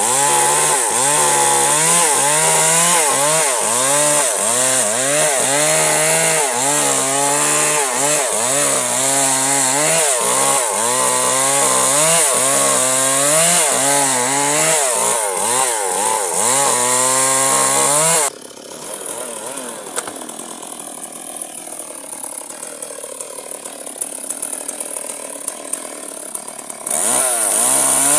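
Electric chainsaw motor running while cutting firewood, its whine dipping and recovering again and again as the chain bites into the wood. About two-thirds of the way through it stops suddenly, leaving quieter rustling and a few clicks, then starts up again near the end.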